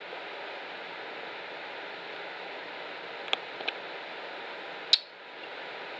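Steady hiss with a few small clicks, the sharpest about five seconds in, after which the hiss drops briefly and comes back.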